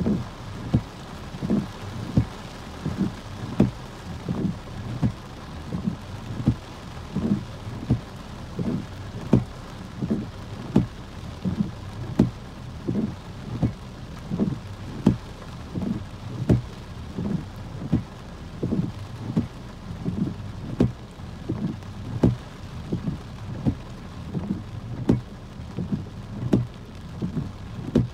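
Rain falling on a car, heard from inside the cabin, with the windshield wipers sweeping and thumping low and evenly a little more than once a second; the thumps are the loudest sound.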